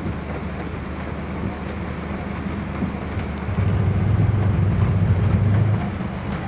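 Floodwater rushing and heavy rain, over a steady low engine hum. About three and a half seconds in, a truck's engine grows louder for a couple of seconds as it drives through the flood, then drops back.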